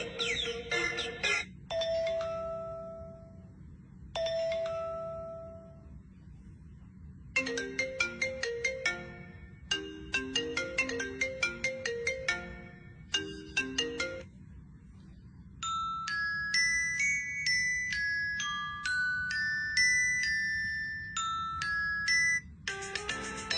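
A string of short electronic ringtone-like melodies: two held tones, then quick runs of plinking notes, then a high beeped tune, each separated by brief pauses.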